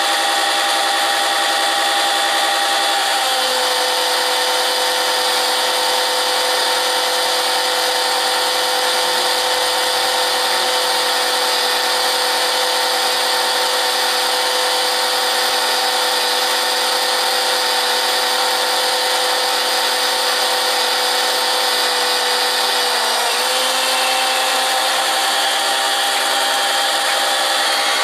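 John Deere 140 garden tractor engine running steadily to warm its oil before an oil change. The engine speed drops a few seconds in and comes back up near the end.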